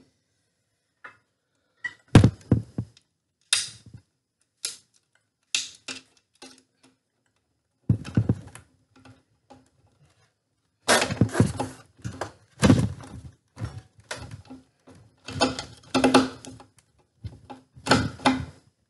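Hand screwdriver driving screws into a ceiling fan's metal motor housing: irregular metallic clicks and knocks as the screws are turned and the parts shift, sparse at first and coming thick and fast in the second half.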